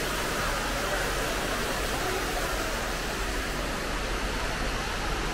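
Steady, even rushing hiss of a large indoor lobby's background noise, with no distinct events.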